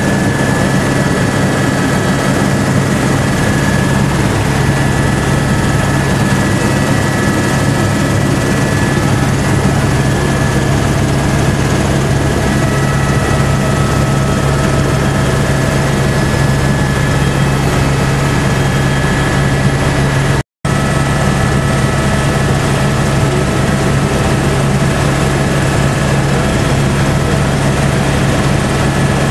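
Helicopter in flight heard from inside the cabin: a loud, steady drone of engine and rotor with a low hum and several fainter higher tones. The sound cuts out for an instant about twenty seconds in.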